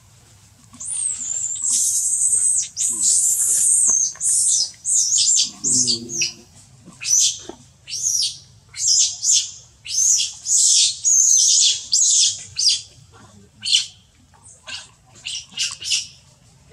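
Infant macaque squealing in high-pitched, sliding cries: a near-continuous squeal for the first few seconds, then many short separate squeals, about two a second. A brief low grunt about six seconds in.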